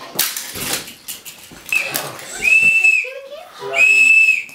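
A child blowing a toy whistle: two steady, high-pitched blasts, each under a second long, about a second apart.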